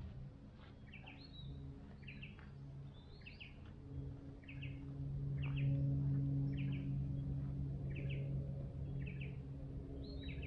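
A bird repeating a short, high double-note call about once a second, over a steady low hum that swells in the middle.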